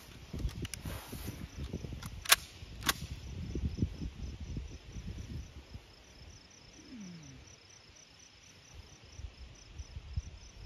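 Two sharp clicks a little over half a second apart, the first the loudest sound, over low wind rumble on the microphone, with faint rhythmic insect chirping running on behind.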